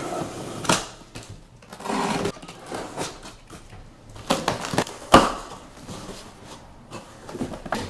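A utility knife slitting the packing tape on a large cardboard box, then the cardboard flaps being pulled open and handled, with several sharp knocks and scraping rustles.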